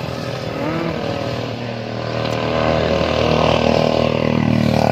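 A motor vehicle's engine running steadily, growing louder from about two seconds in as it draws near.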